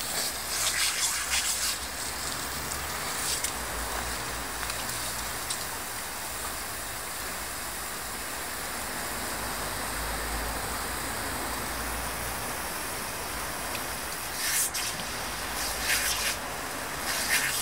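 Garden hose running, water jetting onto wet concrete with a steady hiss. Short louder splashes break through near the start and a few times near the end as a small dog laps and snaps at the jet.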